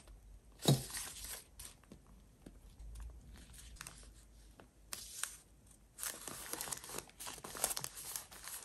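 Paper rustling and crinkling as a torn paper belly band is pressed and smoothed down by hand onto a glued journal page, with one sharp knock about a second in. The rustling is densest in the last few seconds.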